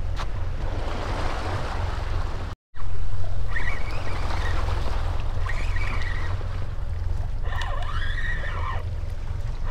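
Wind rumbling on the camera microphone over water lapping around the boat, broken by a short gap of silence a little over two and a half seconds in.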